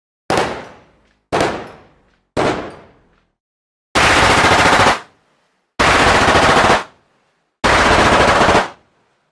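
Machine gun fire: three short bursts, each starting sharply and trailing off over about a second. Then three sustained bursts of rapid automatic fire, each about a second long and cut off abruptly, with short pauses between them.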